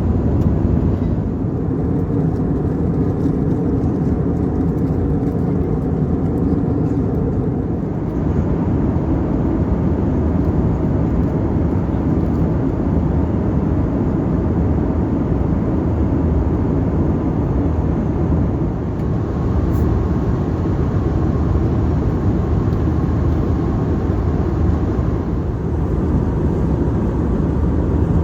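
Steady cabin noise inside an Airbus A320 in flight: engine and airflow noise as an even, deep rumble.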